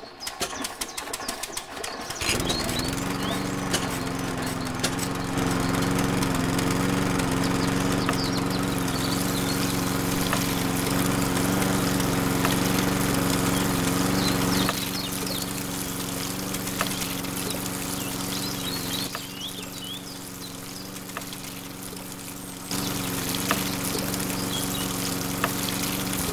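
Small motor of a toy model diesel engine starting up about two seconds in and then running with a steady hum, belt-driving a miniature water pump. Water runs and splashes from the pump's outlet pipes, and the hum drops somewhat about halfway through before picking up again near the end.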